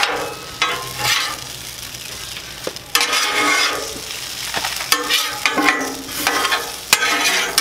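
Metal spatulas scraping and scooping across the steel top of a Blackstone griddle as hash browns are lifted off, over the sizzle of frying food. The scraping comes in repeated strokes, with a few sharp clicks of spatula on steel.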